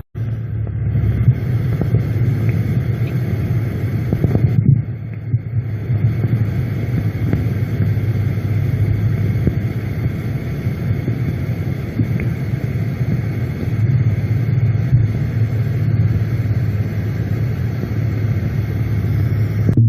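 Steady low rumble with a faint throb and hum, picked up at a borehole recording site. The recordists take it for machinery digging an underground tunnel.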